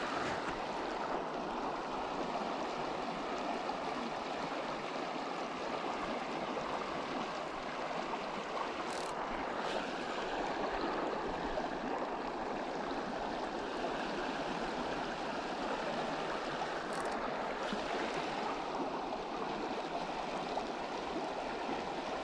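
Shallow, rocky riffle of the Middle Provo River: a steady rushing of flowing water over stones.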